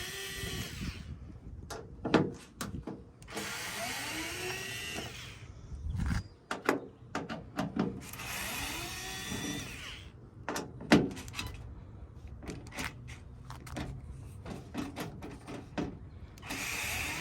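A power drill-driver whirring in short bursts of about two seconds as it backs screws out of the tailgate cover panel, its motor pitch rising and falling. Between the bursts come sharp clicks and knocks of handling.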